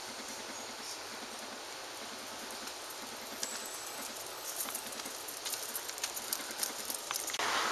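Steady outdoor street noise, with light clicking steps from about halfway in as a small dog trots on paved ground; just before the end a louder rushing noise sets in.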